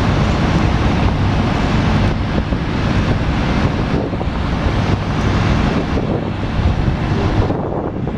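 Wind buffeting the microphone over the low, steady rumble of boat engines; the wind eases a little near the end.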